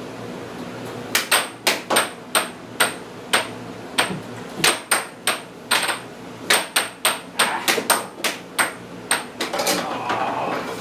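Air hockey puck clacking against the plastic mallets and the table's rails in a fast rally. A rapid, irregular string of sharp clacks, about three a second, starts about a second in and dies away near the end, over the steady hum of the table's air blower.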